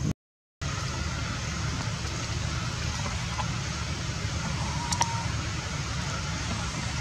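Steady low outdoor rumble, like wind on the microphone or distant traffic. It drops out completely for about half a second near the start, and a faint click comes about five seconds in.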